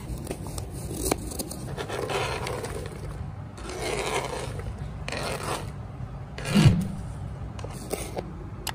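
Kitchen knife scraping across a plastic cutting board as chopped fruit is swept along, in several strokes, with a few sharp taps of the blade on the board. A louder dull thump comes about six and a half seconds in.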